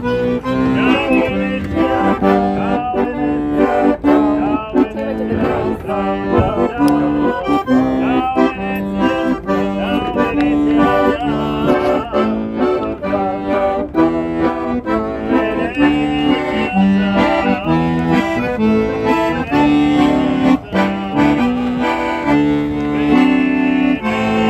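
Accordion playing a lively tune: held chords underneath and a quick run of melody notes on top.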